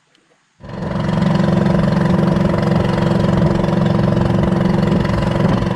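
An engine idling steadily, cutting in abruptly about half a second in.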